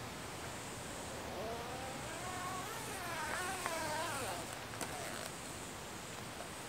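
A distant motor vehicle engine, rising in pitch for a few seconds and wavering near the top, then falling away about four seconds in.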